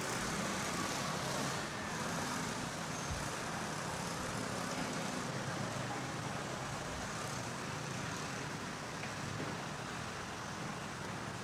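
Steady background ambience: an even hiss with a low rumble underneath and no distinct events.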